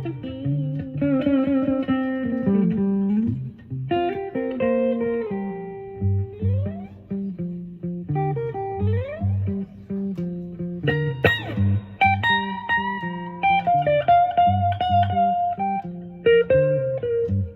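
Epiphone Sheraton semi-hollow electric guitar playing a slow blues lead in G, with single-note lines and notes sliding up twice. Repeating low bass notes sound underneath.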